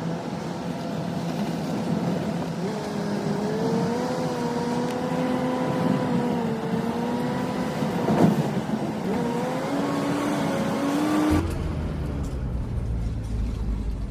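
Pickup truck engine running on the road, its pitch rising and falling with speed, with a sharp knock about 8 seconds in. About 11 seconds in the sound changes abruptly to a duller, lower rumble.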